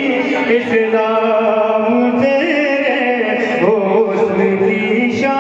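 A man singing Urdu devotional verse (naat) in long, drawn-out notes that bend and glide in pitch.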